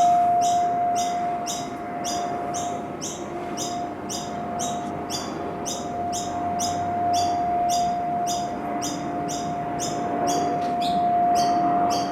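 A steady, high-pitched hum holding one pitch, the unexplained sound heard from the sky, with rapid high chirps repeating evenly about three times a second over it.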